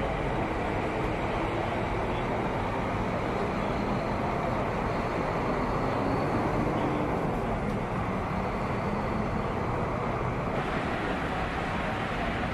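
Steady rumble of stopped and slow-moving expressway traffic, with idling truck and car engines humming under it. A little more hiss comes in near the end.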